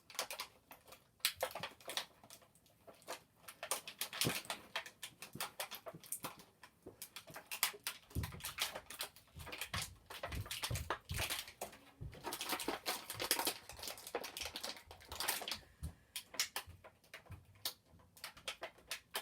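Plastic action-figure packaging and small plastic hand accessories being handled: dense crinkling and clicking, with a few low thumps in the middle.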